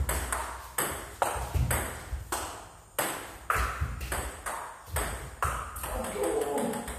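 Table tennis rally: the ball clicking off the bats and bouncing on the table, about two sharp hits a second.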